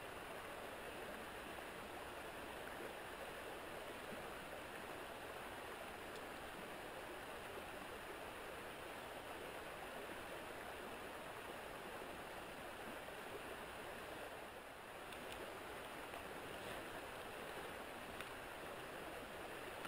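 Shallow river flowing over stones: a steady rushing of water, with a few faint clicks over the last few seconds.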